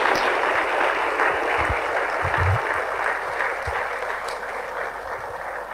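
Large audience applauding steadily, slowly dying away toward the end.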